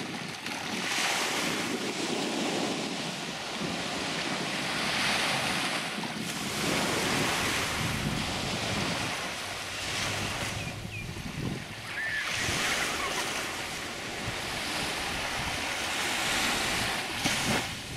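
Small sea waves breaking and washing up on a sandy beach, swelling and easing every few seconds, with wind buffeting the microphone.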